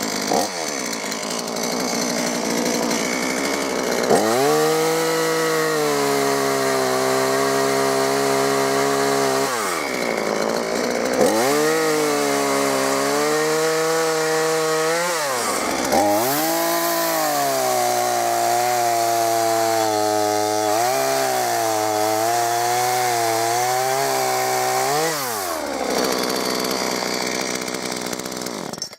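Gardenline two-stroke petrol chainsaw running at high revs and cutting into a tree stump. Its engine note drops and holds lower through three long cuts and rises sharply each time the chain comes free. This is the saw's first test cut after repair, and it is producing chips.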